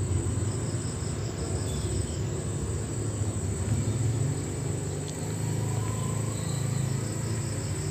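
Steady low background rumble with a faint high chirp repeating at an even pace, which fades out and comes back near the end.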